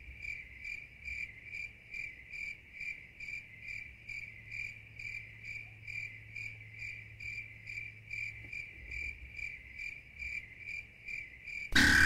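A cricket chirping steadily, about three chirps a second.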